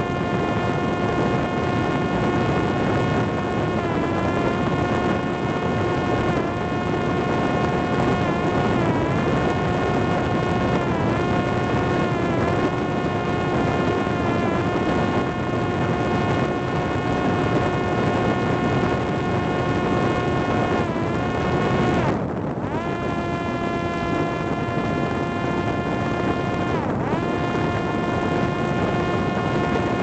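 Parrot Disco fixed-wing drone's electric motor and pusher propeller, heard from on board as a steady high-pitched whine over wind rush on the microphone. The pitch dips briefly every few seconds, and the whine drops out for a moment about three-quarters of the way through.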